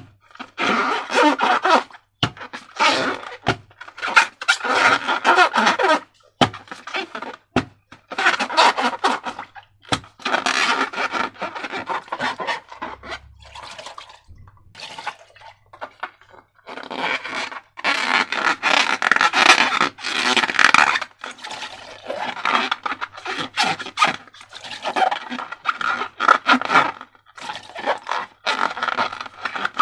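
Slime squelching and crackling as it is squeezed and worked by hand, in repeated wet bursts with brief pauses and sharp clicks.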